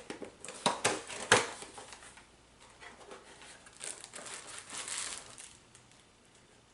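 Blood pressure monitor's box and packaging being opened and handled: crinkling and rustling, with a few sharp knocks in the first second and a half, the loudest just after one second.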